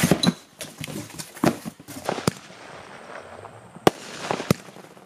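Fireworks going off: an irregular string of sharp bangs and cracks with a hissing stretch in the middle, the loudest two bangs near the end.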